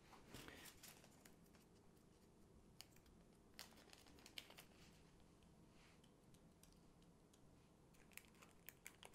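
Near silence, with faint scattered clicks and rustles of a small plastic zip bag of diamond-painting drills being handled by hand, and a few quick clicks near the end.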